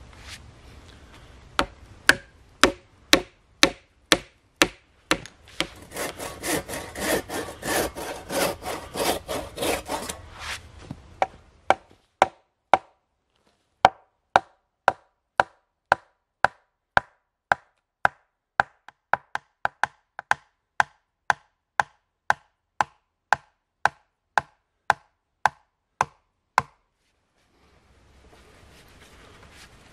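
Hammer blows driving a wooden peg into a joint of a round-pole frame, sharp regular strikes about two a second. In the middle there is a few-second stretch of rapid rasping strokes on wood.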